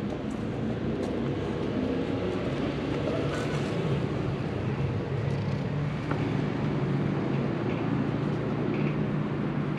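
A steady low hum of outdoor background noise, with a few faint clicks.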